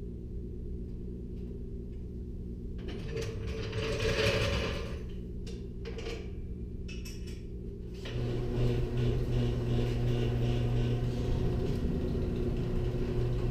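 A floor jack is lowered and wheeled out from under a lawn tractor, heard as a brief stretch of mechanical noise a few seconds in. About eight seconds in, an electric garage door opener starts and runs with a steady low hum as the door rises.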